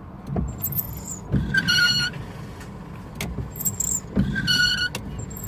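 Car windscreen wipers sweeping across the glass, squealing twice with a thud at the strokes. The wipers are worn and one arm is bent.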